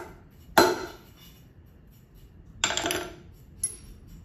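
Hammer striking a transfer punch set in a steel linear rail's bolt hole, marking the hole position on the lathe bed: one sharp metallic strike about half a second in, then a short rattling clatter of metal tools near three seconds and a light click after it.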